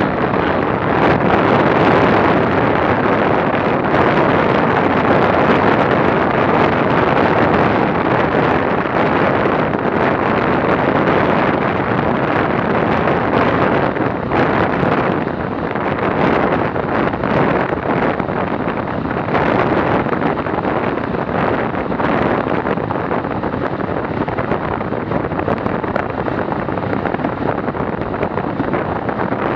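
Loud, steady wind rush buffeting an action camera's microphone on a bicycle moving at about 60 km/h.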